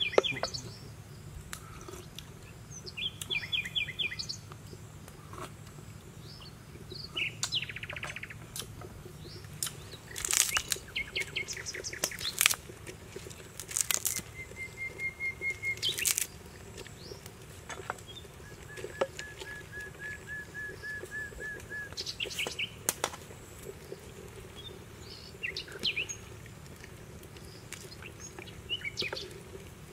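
Wild birds chirping and calling, with several short rapid trills, and a few sharp knocks and clicks in between.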